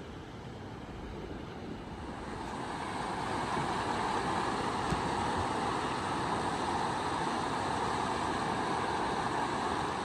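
Havasu Creek rushing over small rocky cascades and rapids: a steady rush of water that grows louder over the first few seconds, then holds.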